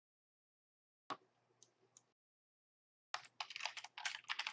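A single click about a second in, then a quick run of computer keyboard typing in the last second and a half, as object names are typed in.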